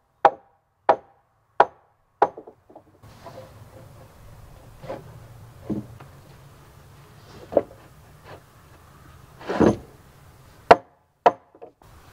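Sharp wooden knocks on heavy log timber: four evenly spaced blows at first, then scattered single knocks and one longer, heavier thud, as log floor joists are worked into their pockets in the sill log.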